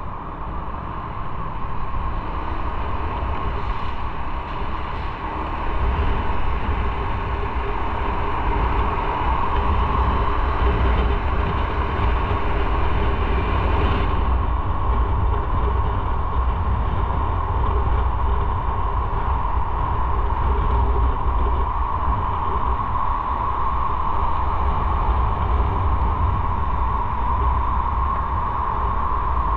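Motorcycle under way, engine running steadily with a low rumble under a steady noise. It grows louder about six seconds in.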